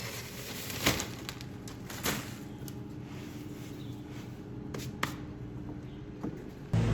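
A low, steady background hum with a few sharp clicks or knocks scattered through it, then a much louder sound cuts in suddenly near the end.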